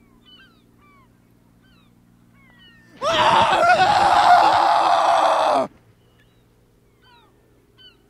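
A loud, raspy, honking squawk lasting about two and a half seconds, starting about three seconds in, its pitch wavering. Faint short, high chirps of small birds sound before and after it.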